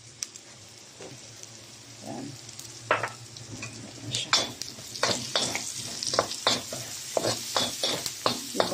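Minced garlic, onion and crisped pork fat sizzling in hot oil in a wok as annatto oil goes in, the sauté stage of a pork afritada. From about three seconds in, a spatula stirs and scrapes the wok in quick strokes, about two or three a second, louder than the sizzle.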